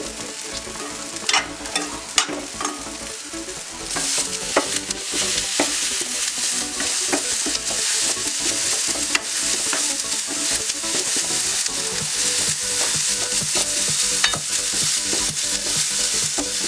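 Metal spoon scraping and clicking in a steel pan as cooked squid rings are stirred, then, from about four seconds in, a louder steady sizzle of onion-tomato masala frying in oil, stirred with a wooden spatula with occasional scrapes.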